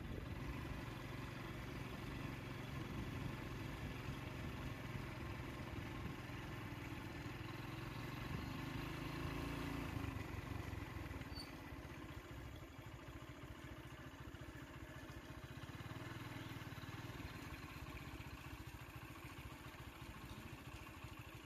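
Vehicle engine idling with a steady low rumble, a little quieter from about halfway through.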